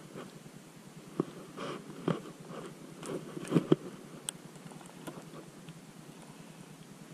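Scattered sharp clicks and short crunchy rustles from a baitcasting rod and reel being handled in a plastic kayak. The louder clicks come about a second in, two seconds in, and a close pair at about three and a half seconds.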